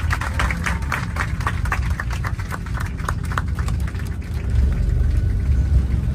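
Passengers clapping inside an airliner cabin after a safe emergency landing, the applause dying away about four seconds in. Beneath it runs the steady low rumble of the Boeing 737-800 on the ground, growing a little louder near the end.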